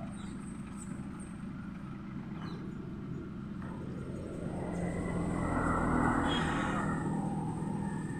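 A motor vehicle's engine runs with a steady low hum, and a swell of road noise builds about halfway through and eases off again, like a vehicle passing by.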